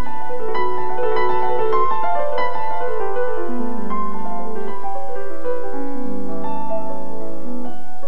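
Oboe and grand piano playing a slow classical melody together, the oboe holding long notes over the piano accompaniment.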